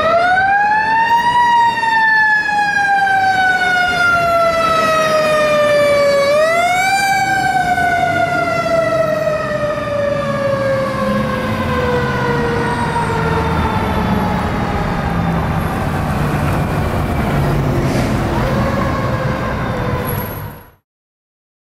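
Seagrave fire engine's siren sounding while the truck responds: it winds up quickly, then falls slowly over several seconds, winds up again about six seconds in and falls again, with a short rise near the end. The truck's engine noise comes up under it as the truck passes, and the sound cuts off suddenly just before the end.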